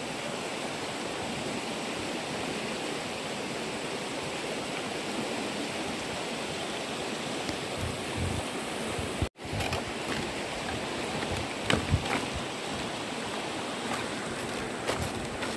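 A muddy river rushing steadily, an even full water noise. It drops out for an instant about nine seconds in, and a few sharp knocks follow, the loudest about twelve seconds in.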